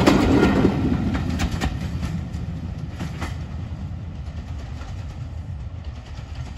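Passenger coaches' wheels rumbling and clicking over the rail joints as the tail of a train passes close by. The sound fades steadily as the train draws away down the line.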